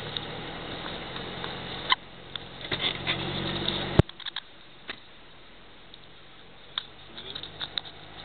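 Off-road SUV driving on a snowy track, heard from inside the cabin: a low engine hum with rattles and knocks, growing louder. A sharp click about halfway through, after which it is much quieter with only scattered knocks and creaks.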